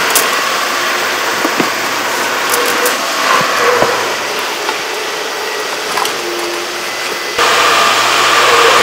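Construction machine's engine running steadily, with a few light knocks, getting louder about seven and a half seconds in.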